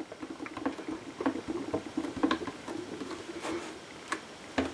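Soft, irregular taps and rubbing of hands pressing a Stamparatus stamp positioner's clear plate down onto cardstock to stamp an image, with a sharper knock near the end.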